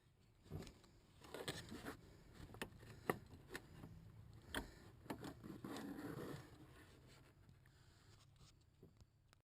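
Faint handling clicks, scrapes and rubbing as hands work the HID bulb and its plastic parts into the headlight socket, with several sharp ticks in the first six seconds or so.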